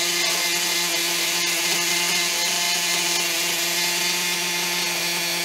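Maxy's Cinco 2.0 two-stroke RC nitro engine idling steadily on a stand during its break-in on break-in fuel.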